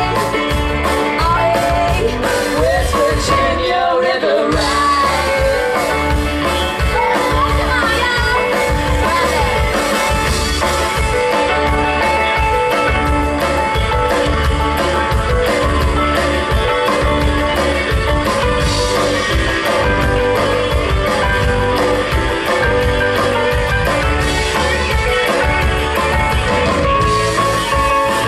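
Live country-rock band playing a song: singing over electric guitars, bass and fiddle, driven by a steady drum-kit beat.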